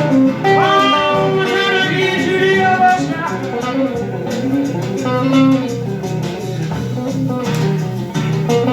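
Music: a blues-tinged song with guitar and a singing voice over a steady low bass part.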